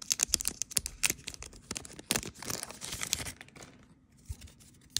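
A One Piece Card Game OP-07 booster pack's wrapper being torn open and crinkled: a quick run of crackles, then a longer tearing rustle that stops about three and a half seconds in.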